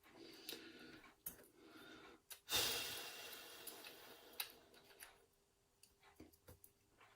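A person breathing out heavily, a long frustrated sigh about two and a half seconds in, amid a few small sharp clicks of lock pins and tools being handled.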